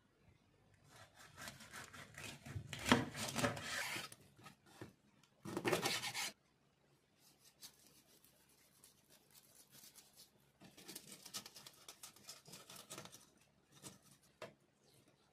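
Kitchen knife scraping and cutting along a whole raw mackerel on a wooden cutting board: rasping strokes in bursts, loudest in the first half, with a few small clicks near the end.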